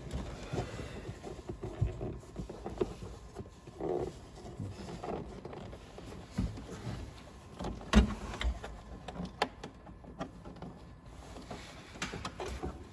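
Rustling and scattered small clicks and knocks of hands working wiring in behind a car's plastic headliner and pillar trim, with one louder knock about eight seconds in.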